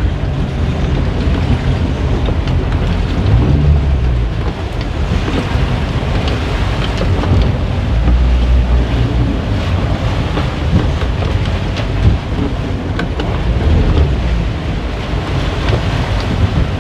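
Motorboat engine running as the boat manoeuvres in choppy water, with water churning along the hull and wind buffeting the microphone. The low rumble swells a few times.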